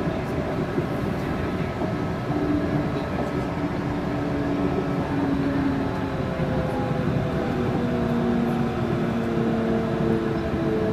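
Yurikamome rubber-tyred automated guideway train running along its elevated concrete guideway, heard from inside the front car: a steady rumble with several humming tones that shift in pitch partway through.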